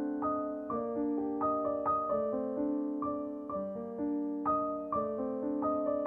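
Gentle piano music, with notes struck at a slow, even pace, about two a second, over held lower notes.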